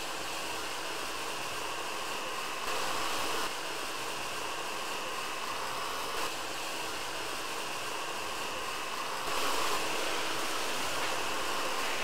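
Miele Triflex HX1 cordless stick vacuum running steadily: an even rush of motor and airflow with a faint steady whine. It is pushed along the edge of a hard floor and gets slightly louder for a moment about three seconds in, and again from about nine seconds on.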